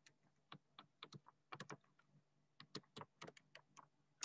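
Faint key clicks of a computer keyboard being typed on, in quick irregular runs.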